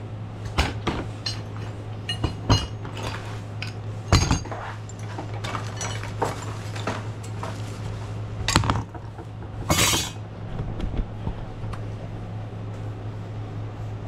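Metal hand tools clinking and clattering as they are rummaged through and sorted, with irregular sharp knocks and a louder clatter about ten seconds in.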